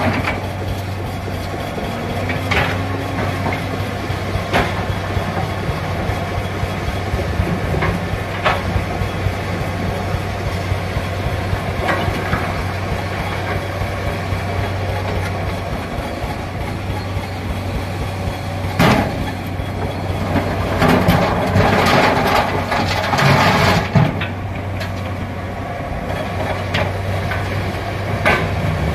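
Komatsu PC200-7 hydraulic excavator's diesel engine running steadily with a low hum. Scattered knocks and clatters come through it, several louder ones about two-thirds of the way in.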